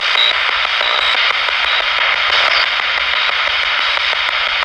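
Loud, steady radio static hiss broken by a run of regular faint clicks, as from a ghost-hunting spirit box sweeping through radio frequencies.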